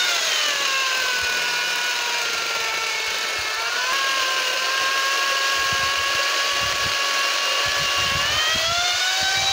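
Electric chainsaw running as it cuts overhead branches. Its motor whine drops in pitch in the first second as the chain bites into the wood, lifts a little about four seconds in, and climbs back to full speed near the end as the cut eases.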